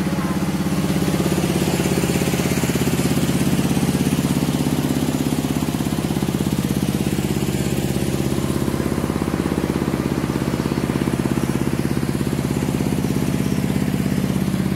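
Stationary diesel engine of a rice mill running steadily at a constant speed, with an even, fast pulsing beat.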